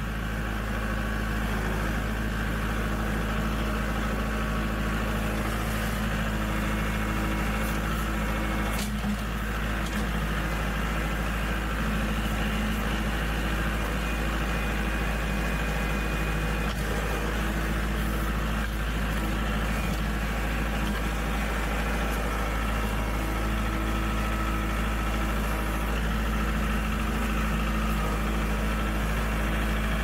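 Compact tractor engine running steadily at an even speed while the front loader is worked, with a faint steady whine above the engine note.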